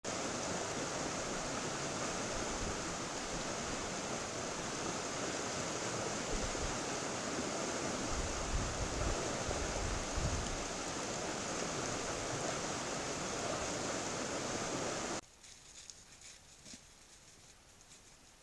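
Steady rushing noise picked up by a trail camera's microphone, with low rumbling between about six and eleven seconds in. About fifteen seconds in it cuts off to a much quieter background with a few faint ticks and rustles.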